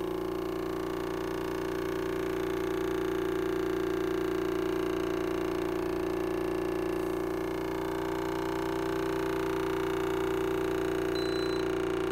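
Home-made tin-can thermoacoustic engine with a balloon diaphragm running on water vapour, its oscillation giving a steady, even hum with a clear pitch.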